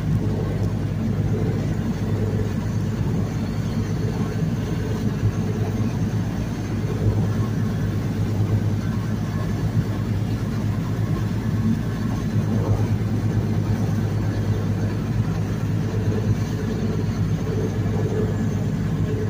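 A lobster boat's engine running steadily under way, a constant low hum, with water rushing past the hull.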